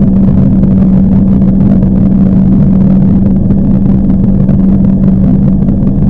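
Generator running with a loud, steady low hum over a rumble.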